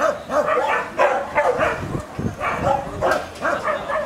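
Several dogs barking over one another, a rapid run of barks coming several times a second without a break.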